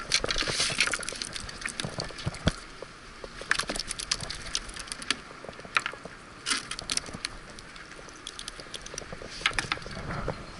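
A freshly landed cutlassfish on wooden pier planks being unhooked with pliers: irregular taps and clicks as the fish knocks against the boards and the metal pliers work the hook.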